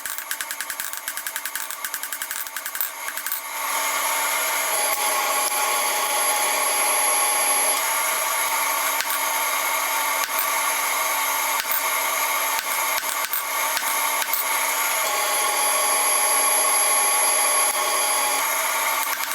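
Power tool grinding metal, running steadily after a fast rattling start in the first few seconds.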